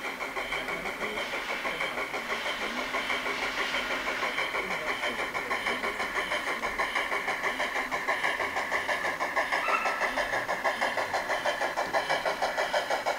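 Garden-scale model steam locomotive 99 5001 chuffing rhythmically, about four beats a second, growing louder as it approaches.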